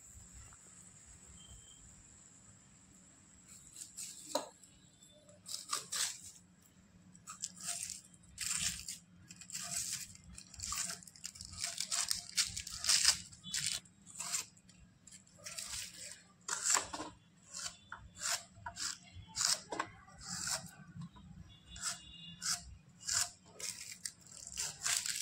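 Onion pieces being pushed across the blade of a wooden hand-held slicer: a long irregular series of short, crisp cutting strokes, roughly one or two a second, beginning a few seconds in.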